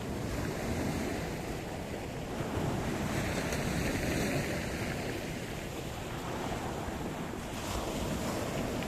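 Sea surf: waves breaking and washing ashore in a steady rush, swelling about three seconds in and again near the end.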